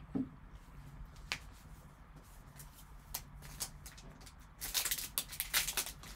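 A few light clicks as trading cards are handled, then, about two-thirds of the way in, a foil card-pack wrapper crackling and crinkling as it is picked up and handled.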